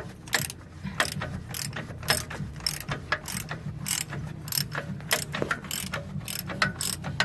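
Hand ratchet wrench tightening a bolt, its pawl clicking in a steady rhythm of about two clicks a second.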